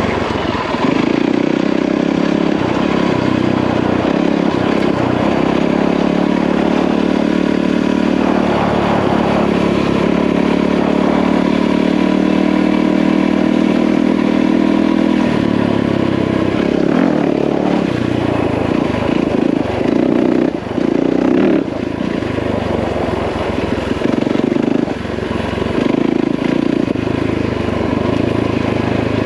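Yamaha WR450F dirt bike's single-cylinder four-stroke engine running under load on a trail, holding a steady pitch for the first half. In the second half the engine sound turns choppy, with the throttle opening and closing and two brief dips.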